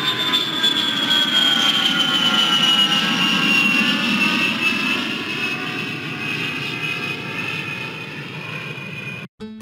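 Jet airliner engines running, a high whine sliding slowly down in pitch over a steady rumble. The sound cuts off suddenly just before the end.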